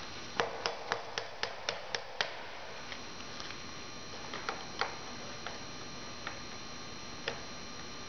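Hand ratchet wrench clicking as the band on an external rubber chimney seal is tightened down: a run of about eight even clicks, about four a second, in the first two seconds, then a few scattered single clicks.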